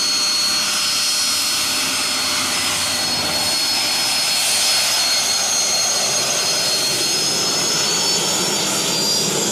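Turbine engine fitted in the back of a minivan running: a steady jet roar with high whining tones, the top whine rising slightly in pitch near the end.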